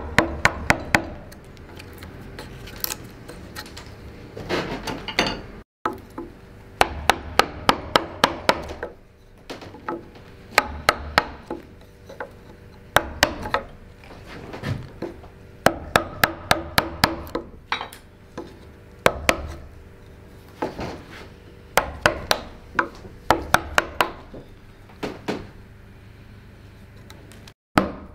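A wooden mallet strikes the handle of a carving gouge, driving the blade into a wooden log. The sharp knocks come in quick runs of several strokes with short pauses between.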